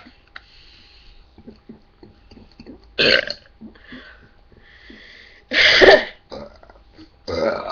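People belching on purpose: three loud burps a couple of seconds apart, the middle one the longest and loudest.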